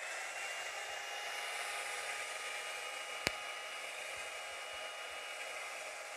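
Handheld hair dryer running steadily, a rush of air with a faint steady whine, blowing over wet acrylic paint to spread it into a bloom. There is one sharp click a little past halfway.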